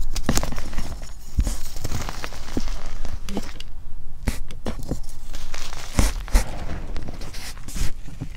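Hands digging into and crushing loose powdered gym chalk and crumbling reformed chalk pieces: irregular dry crunches over a soft powdery hiss, with a few sharper crunches standing out.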